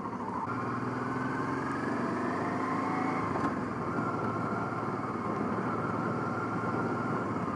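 Honda Africa Twin motorcycle engine accelerating, its pitch rising over the first few seconds and then holding steady, over a steady rush of wind and road noise.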